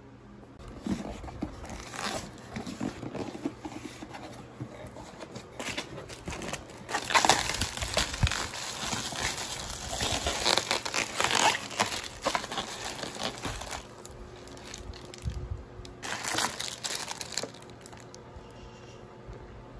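Plastic air-pillow packing film crinkling and rustling as it is handled and pulled out of a cardboard box, in uneven spells that are loudest in the middle and die away near the end.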